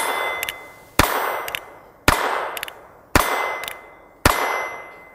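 North American Arms .22 LR single-action mini revolver fired five times, about a second apart, emptying its five-shot cylinder. Each shot rings on and dies away, with a light click about half a second after each.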